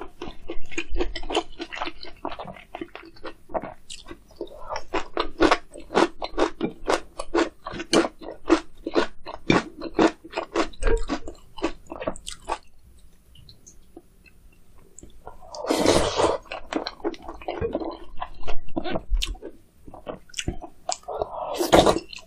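Close-miked eating of spicy meat gukbap with kimchi: quick crunchy chewing for about twelve seconds, a short pause, then a few louder, longer slurping mouthfuls of the soup in the second half.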